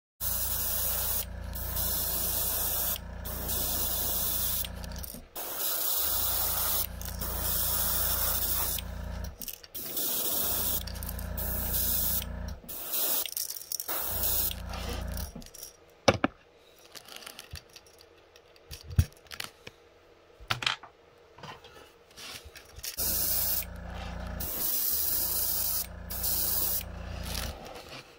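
Iwata Eclipse airbrush spraying paint onto a crankbait lure body in bursts of two to five seconds each: a steady air hiss over a low hum. About halfway through the spraying stops for several seconds, with a few sharp clicks, then starts again for two more bursts.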